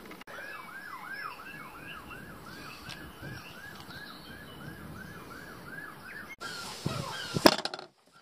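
A high whooping whistle, rising and falling about three times a second, repeats evenly for some six seconds. Near the end come a few loud knocks.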